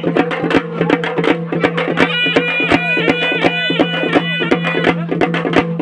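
Loud folk dance music driven by fast, steady drumbeats over a constant low drone. A high melody comes in about two seconds in and drops out a couple of seconds later.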